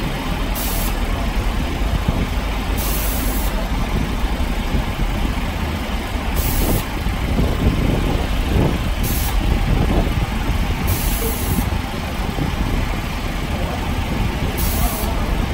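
Diesel railbus engine idling steadily, a low, even engine note with a constant level.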